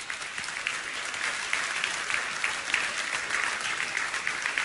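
Audience applauding: dense, steady clapping that swells over the first second.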